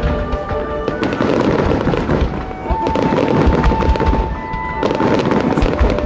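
Fireworks bursting overhead with dense crackling and deep booms, over music with long held notes.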